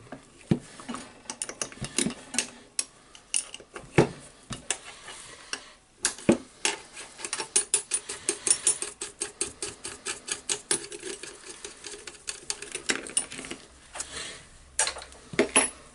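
Light metal clicking and clinking of a Hilti TE1000-AVR demolition hammer's front-end parts being unscrewed and worked loose with a socket wrench and by hand. There is a dense run of rapid clicks in the middle, and single clicks before and after it.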